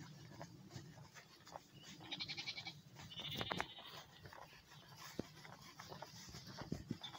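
Sheep bleating faintly, twice: a quick wavering call about two seconds in and another a second later.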